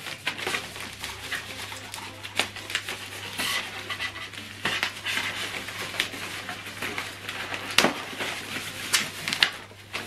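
Plastic bag crinkling and rustling as it is pulled off a small speaker, with irregular crackles and a couple of sharper snaps near the end, over a faint low hum.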